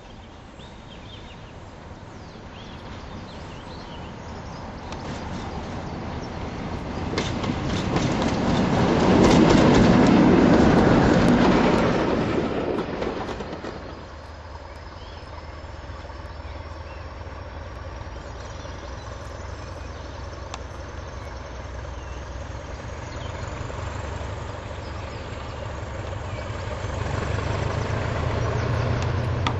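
Class 47 diesel locomotive approaching and passing at speed: engine and wheel noise build to a loud peak about ten seconds in, then fall away. After a sudden drop, diesel locomotives run steadily at a station with a low drone and a faint rising whine, and the drone grows louder near the end as a Class 20 draws nearer.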